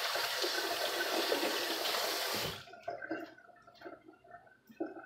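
Kitchen tap running, shut off abruptly about halfway through, followed by a few faint knocks and clatter.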